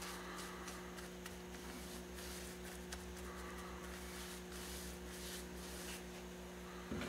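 Faint rubbing of a paper towel wiping wet surplus glue off aircraft fabric along a tube edge, with a few light ticks, over a steady low electrical hum.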